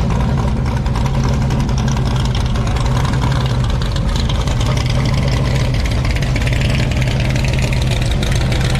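Hot rod engine idling steadily and loudly.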